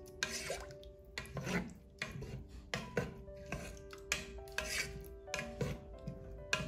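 Wooden spatula stirring glutinous rice, peanuts and coconut milk in a pressure cooker's inner pot, scraping and swishing in repeated strokes about twice a second. Soft background music with held notes underneath.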